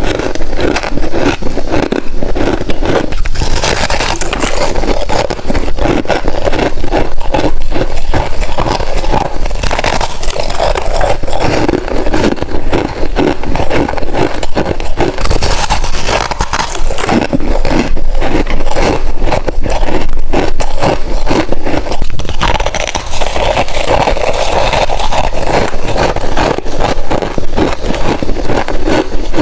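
Crunchy chunk of freezer frost being bitten and chewed close to the microphone: a loud, unbroken run of crisp crunches and crackles.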